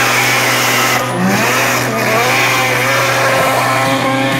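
Turbocharged 13B rotary engine in a Nissan 180SX revving hard during a burnout, its pitch rising and falling again and again, over the screech and hiss of spinning rear tyres.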